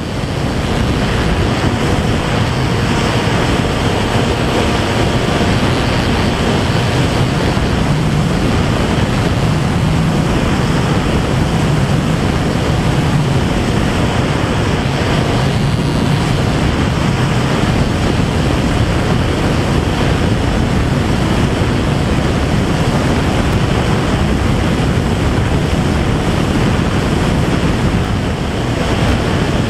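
Steady, loud rush of wind over the microphone of a camera carried aloft by a flying RC plane, with no clear engine tone, dipping slightly near the end.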